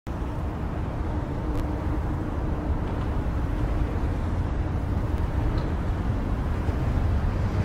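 City street traffic ambience: a steady low rumble of passing vehicles, growing slightly louder near the end.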